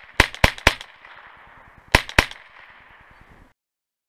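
AR-style .22 rifle fitted with a titanium muzzle comp, firing five quick shots: three in rapid succession, then a pair about a second and a half later, each with a short echo. The sound cuts off suddenly about three and a half seconds in.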